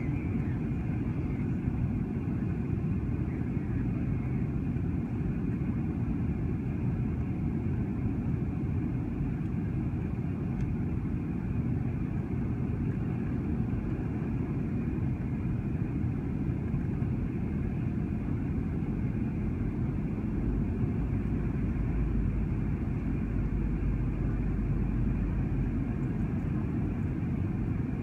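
Cabin noise of a Boeing 737 jet airliner on descent, heard from a window seat over the wing: engines and rushing air make a steady, low-pitched noise that does not change.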